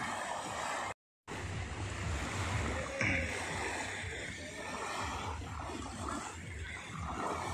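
Small sea waves washing and lapping on the beach, with a low wind rumble on the microphone; a wave surges a little louder about three seconds in. The sound cuts out completely for a moment about a second in.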